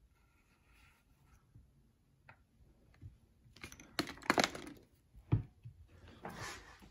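Faint clicks and knocks of hands handling a leather-hard clay lantern cylinder as it is lifted and set back down on its wooden board. They start about halfway through, with a duller low knock about five seconds in.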